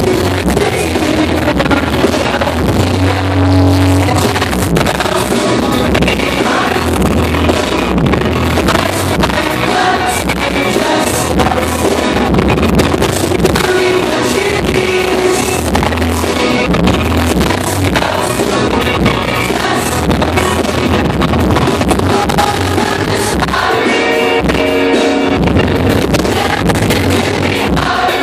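Live rock band playing electric guitars and drums, with singing, heard loud and dense from within the audience.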